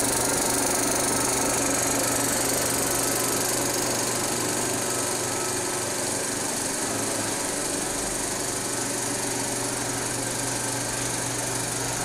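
35mm film projector running, its film-advance mechanism clattering in a fast, even rhythm over a steady motor hum.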